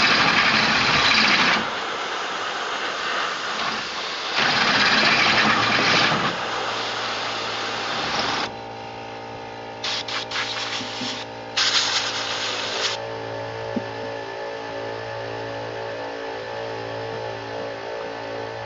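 Corded electric drill with a 3/8-inch twist bit boring through steel angle iron, with two loud bursts of drilling and compressed air blown on the bit to cool it in the first six seconds. Past the middle the drilling stops and an air compressor runs on with a steady pulsing hum, recharging its tank.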